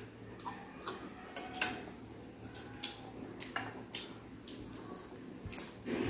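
Sounds of eating crispy pata and rice: scattered sharp clicks and taps of cutlery on plates and crunchy chewing, irregular at about one or two a second, over a faint low hum.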